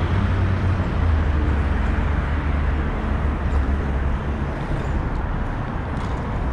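Steady street noise: the low rumble of road traffic going by.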